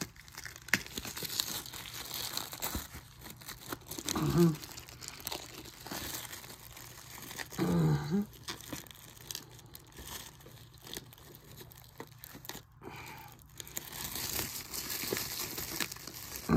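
Packaging being handled and unwrapped by hand: crinkling and tearing with scattered small clicks. Two short vocal sounds from a person break in about four and eight seconds in.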